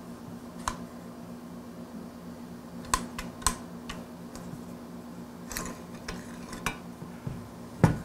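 Scattered sharp metallic clicks and clinks of steel parts as the firing pin assembly is worked out of the back of a Pancor Jackhammer shotgun receiver. There are about ten in all, with the loudest knock near the end, over a faint low steady hum.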